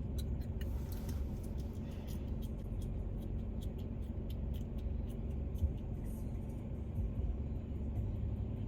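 Steady low rumble inside a car, with many light, irregular ticks over it and faint music underneath.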